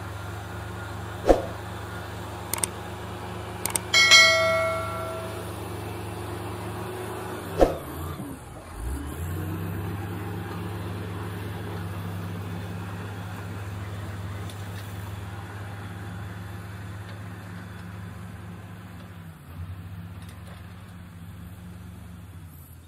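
Heavy diesel engines of a crawler bulldozer and an excavator running steadily. There are sharp knocks about a second in and again near eight seconds, and one loud ringing metal clang about four seconds in. Just after eight seconds the engine drops in pitch under load, then picks back up.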